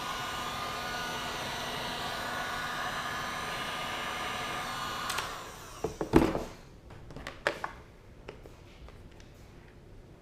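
Hot-air blower running steadily while softening a vinyl number-plate sticker, switched off about five seconds in. A few knocks and clicks of handling follow, the loudest about six seconds in.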